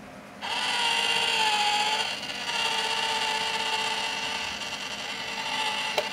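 A toy 'stealing cat' coin bank's small electric motor whirring steadily as the lid lifts and the toy cat peeks out. A sharp click sounds near the end.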